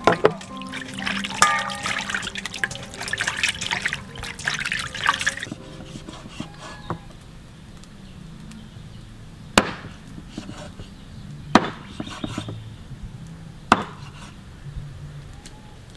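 Hands swishing and splashing a piece of raw pork in water in a steel bowl for about five seconds. Then a cleaver chops into meat on a wooden chopping block three times, about two seconds apart, over soft background music.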